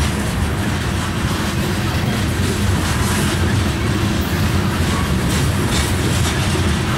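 Loaded covered hopper cars of a grain train rolling past: a steady, even rumble of steel wheels on rail, with a few faint clicks.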